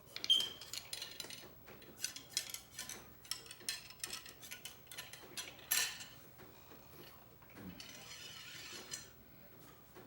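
Metal clinking and scraping of a cleaning rod working a patch through a muzzleloader barrel, in a run of quick light clicks with a louder scrape about two thirds of the way through. A rustle lasting about a second follows near the end.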